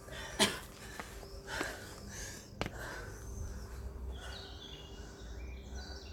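An exhausted athlete breathing hard just after finishing a CrossFit workout, with two sharp knocks from gym equipment, the first about half a second in and the louder of the two. Faint high chirps start about four seconds in.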